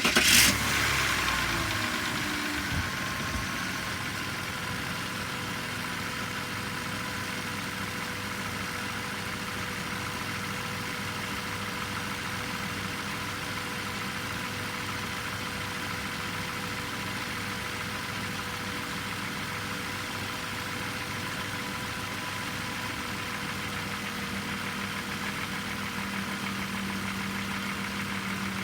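BMW M54 straight-six engine cranking and catching right at the start, flaring briefly, then settling into a steady hot idle within a few seconds. The owner reports a knock at hot idle that sets in 10 to 15 seconds after starting.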